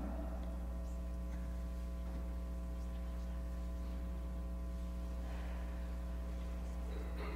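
Steady electrical mains hum: a low drone with a ladder of higher overtones, from the sound system.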